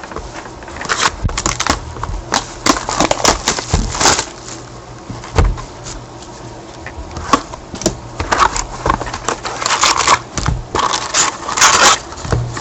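Crinkling, crackling rustle of packaging and cardboard handled in irregular spurts as a sealed box of hockey trading cards is opened and its packs pulled out, over a faint low hum.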